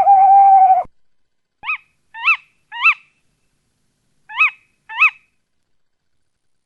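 Animal calls: a held, pitched call that stops abruptly just under a second in. After a pause come five short, arching calls, three close together and then two more.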